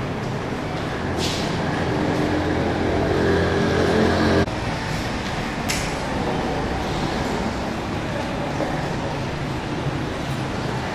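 Road traffic noise with a vehicle engine humming, growing louder and then cutting off abruptly about four and a half seconds in. Two short hisses come about one and six seconds in.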